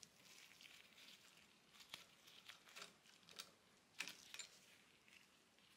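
Near silence with a few faint, scattered clicks of a hex key and small metal parts being handled while bolts on a 3D printer's extruder carriage are loosened.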